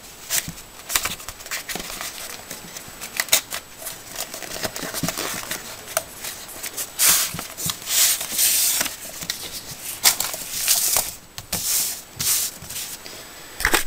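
Handling noise from a black hardcover notebook being taken out of its packaging and laid on a wooden desk: irregular rustling, scraping and light knocks. The loudest stretches come about seven to eleven seconds in.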